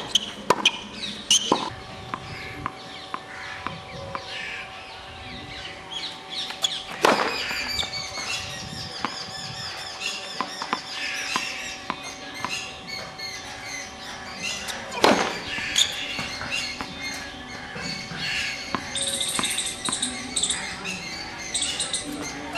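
Tennis ball struck by a racket: a few quick hits near the start, then single sharp serve strikes several seconds apart, about a third and two thirds of the way in. Birds chirping in the background.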